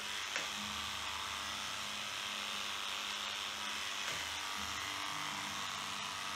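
Electric dog-grooming clippers running steadily as they shave the fur on a dog's paw, with a short click about half a second in.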